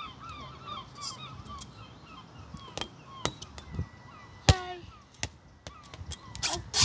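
Geese honking in a quick run of calls during the first second or so. Then a few scattered knocks, and one loud thud about four and a half seconds in as a dropped football hits the rubber playground surface.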